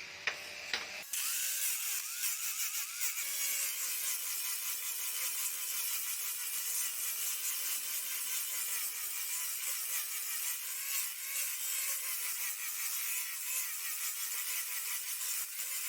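A hand tool rasping in many quick strokes against the axe work, a dense scraping texture with small clicks, starting about a second in after a brief snatch of music.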